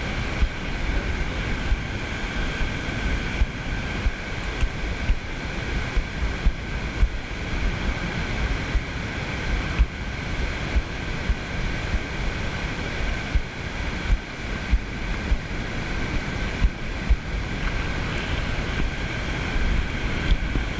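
Wind buffeting the microphone in irregular gusts over small waves breaking on the shore, with a faint steady high tone underneath.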